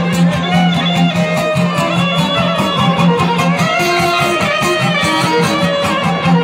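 Live traditional Bosnian folk music: a fiddle plays the melody over a long-necked lute strummed in a quick, steady beat, with a low drone note held underneath.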